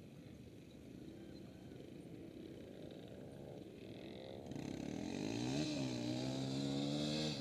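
Quad (ATV) engines: a faint low rumble at first, then about halfway through one engine grows louder and revs up, dips briefly and climbs again to a steady high pitch, as a quad accelerates on the run-up to a dune jump.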